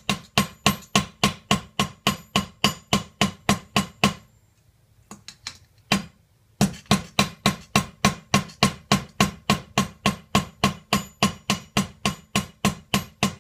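Hammer striking the folded seam of a silver milk can laid in a grooved steel tool, squashing the joint of the two halves together. The blows are steady, about four a second, each with a metallic ring. The hammering stops for about two seconds a third of the way in, with only a few light taps, then starts again.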